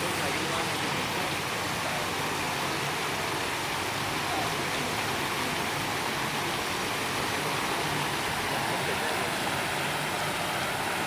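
Water falling steadily over an artificial rock waterfall, an even rushing hiss.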